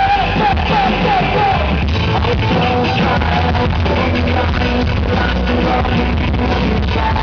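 Live rock band playing loud, with a singer's voice over guitars and drums, captured with poor sound quality on a handheld camera.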